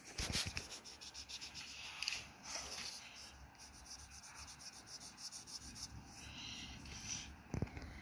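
Pen or pencil scratching on paper in rapid repeated strokes while drawing.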